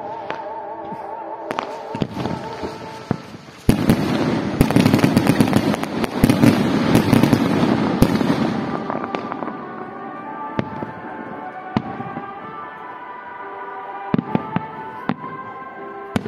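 Aerial fireworks going off: scattered sharp bangs throughout, with a loud, dense volley of crackling and booms from about four to nine seconds in. Music plays in the background.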